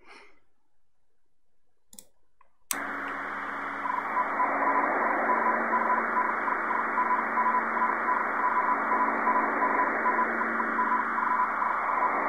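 Recorded radio broadcast played back, amplified: radio static cuts in suddenly a few seconds in. About a second later a single steady tone starts beeping in Morse code over the hiss, in a run of short, fairly even beeps. A couple of faint clicks come before the static.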